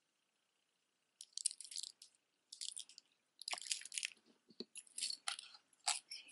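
Costume jewelry being handled: a necklace of glass and plastic beads clicking together as it is put down, then a metal pendant on a cord picked up. It comes as a run of short, crisp clattering bursts starting about a second in.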